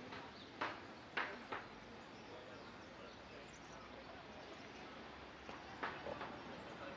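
Faint outdoor ambience with a few short, sharp sounds: two or three in the first second and a half, and two more about six seconds in.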